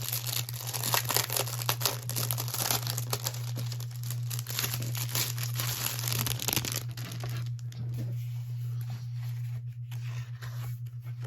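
Paper and plastic packaging crinkling and rustling as a junk-journal kit is handled, busy for about the first seven seconds and then sparser. A steady low electrical hum runs underneath.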